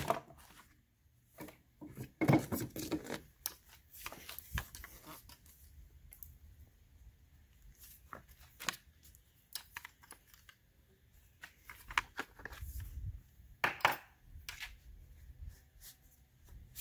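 Scattered handling noises at a workbench: short clicks, knocks and rustles as a PVC pipe is taken out of a bench vise and a metal pin is set down, with a louder rustle about two seconds in and another sharp one near the end.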